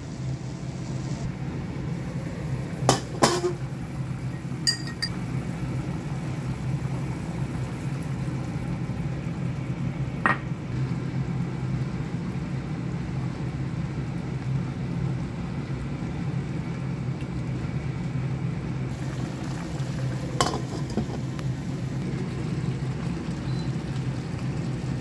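A few sharp clinks of a glass pot lid and metal against a cooking pan: a pair about three seconds in, one near five seconds, one near ten and one near twenty. Under them a steady low hum carries on.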